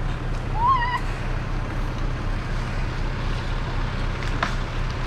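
Fast-flowing floodwater rushing steadily over the low, steady hum of an idling 4x4 engine, with a short high-pitched cry that rises and falls about a second in.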